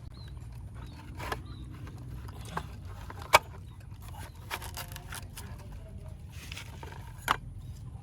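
A small monkey biting and chewing a juicy fruit: a handful of sharp, wet crunching clicks, the loudest about a third of the way in and another near the end, over a steady low rumble.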